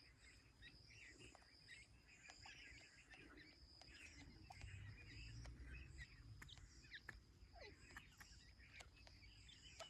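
Faint, repeated high cheeping of teetar (partridge) chicks, about two chirps a second, with scattered light clicks.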